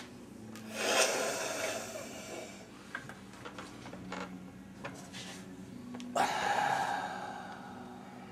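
A man snorting hard through his nose, twice: a long noisy sniff about a second in, and a louder one near the end that trails off.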